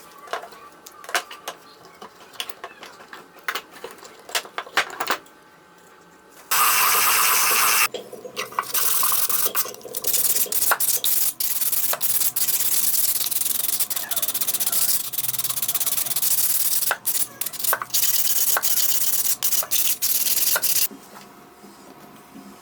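Light clicks and knocks of handling for about six seconds, then a power tool running loudly on wood for about fourteen seconds. The tool pauses briefly after its first second and drops out a few times before it stops near the end.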